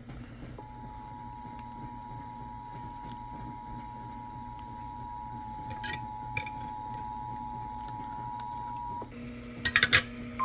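Emergency Alert System two-tone attention signal: a steady dual tone just below 1 kHz that holds for about eight seconds and stops. Near the end come a few short, loud bursts of harsh digital noise, like the data bursts of an alert header.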